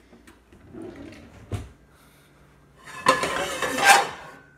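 Kitchen cookware and utensils being handled: one knock, then about a second later a second of loud clattering and clinking, with a little metallic ringing.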